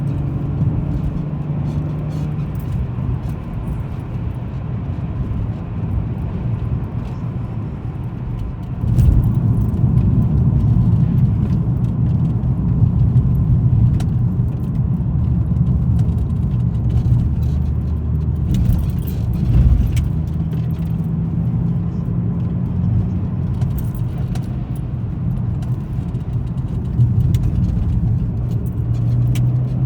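Car engine and tyre noise while driving, steady, with the engine note shifting and getting louder about a third of the way through. Light scattered ticks and a brief low bump about two-thirds through.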